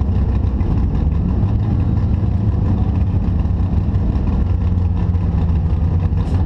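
The DirtKinetics Explorer off-road vehicle's engine running steadily, a continuous low rumble with a faint steady hum that settles in partway through.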